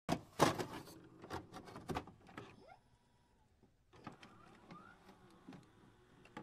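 Digital glitch sound effects: a burst of sharp crackles and clicks for the first two and a half seconds, a pause, then fainter clicks and a short rising chirp.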